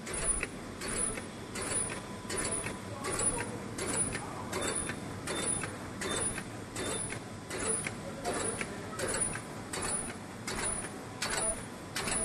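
Laminated pouch making machine running: a steady mechanical hum with a regular sharp clacking stroke of its sealing and cutting cycle, repeating about every three-quarters of a second.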